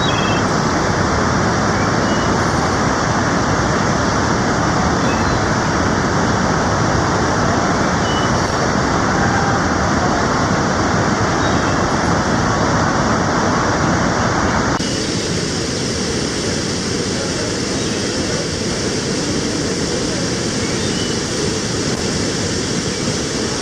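Waterfall and fast-flowing stream water rushing in a steady, loud hiss. About 15 seconds in the sound changes abruptly and the higher part of the rush falls away.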